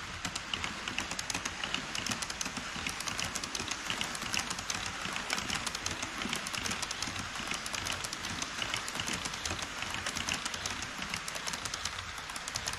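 HO scale E5 series shinkansen model train running over KATO Unitrack on a truss bridge: a rapid, continuous stream of clicks from the wheels over the rail joints, over a steady rolling hiss, starting as the train arrives.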